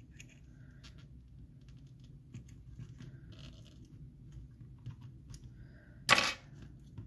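Faint scattered clicks and scratches of metal micro tweezers picking at the battery adhesive inside an iPhone 8 Plus, with one short, louder scraping noise about six seconds in.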